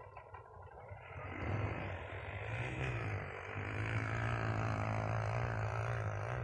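Small single-cylinder 150 cc trail-bike engine revving hard. It grows louder about a second in, then holds a loud, fairly steady note.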